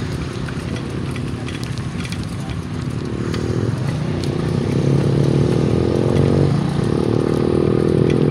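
Motorcycle engine running, coming in about three seconds in and growing louder, over a steady low rumble of wind and road noise on a moving phone's microphone.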